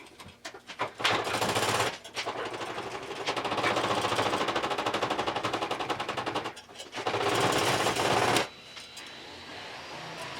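A power tool with a rapid hammering or reciprocating action cutting into the steel of a car door, working through the door metal to free a bracket. It runs in two bursts, a long one and then a short one about a second after the first stops.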